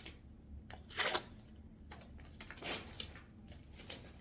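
Clothing packaging being torn open and rustled by hand, with a louder tearing crinkle about a second in and another around two and a half seconds in, and lighter rustles and clicks between.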